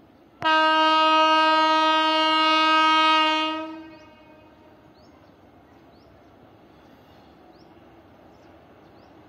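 WAG9 electric locomotive's horn sounding one long steady blast. It starts abruptly about half a second in, holds one pitch for about three seconds, then fades out.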